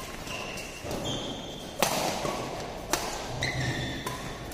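Badminton rally: rackets striking the shuttlecock in sharp cracks about a second apart, two loud ones near the middle and a softer one near the end, with short high squeaks of shoes on the synthetic court between the hits.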